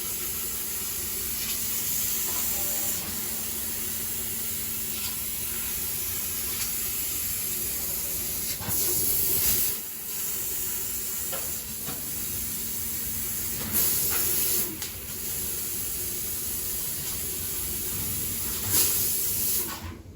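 12 kW enclosed laser cutting machine running, with a steady hiss of gas through the cutting head over a low machine hum. The hiss surges louder three times, each for about a second.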